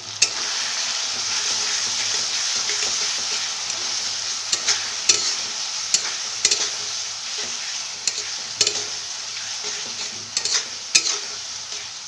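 A sauce mixture of tomato paste, chilli sauces, soy sauce and ketchup sizzling in hot oil in a pan while being stirred: a steady hiss, with the stirring utensil now and then knocking and scraping against the pan.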